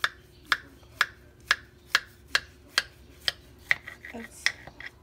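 A knife sawing through the crisp baked lattice crust of a blueberry pie, a sharp crunch on each stroke, about two a second in a steady rhythm. A faint steady hum runs underneath.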